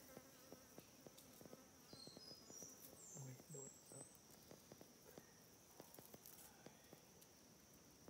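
Quiet forest ambience: an insect's steady high-pitched drone throughout, with a bird's run of short notes climbing in pitch between about two and four seconds in.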